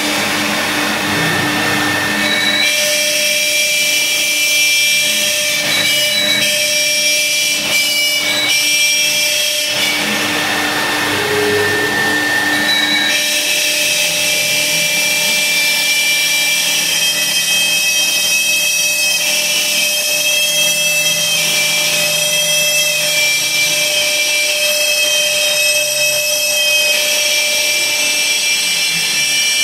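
Laguna Swift CNC router's spindle whining steadily while its bit carves lettering into half-inch plywood, with the dust collector drawing through the hose. The cutting noise changes character every few seconds as the bit works along the letters.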